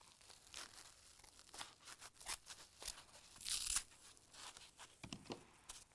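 Scissors cutting through a kitchen sponge and its green scouring pad: several faint crunchy snips, the longest and loudest a little past halfway.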